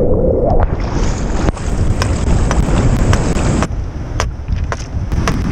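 Strong wind buffeting the microphone over the rush of surf. In the second half come sharp knocks, a rock striking a wooden stake as it is pounded into the pebble beach.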